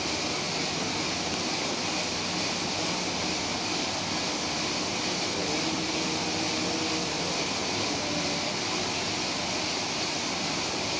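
Steady, even hiss of background noise with no distinct events. A faint brief tone is heard about halfway through.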